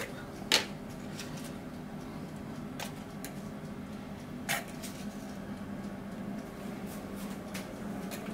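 Scattered knocks and clicks of cooking utensils and cookware, the two loudest about half a second in and about four and a half seconds in, over a steady low hum.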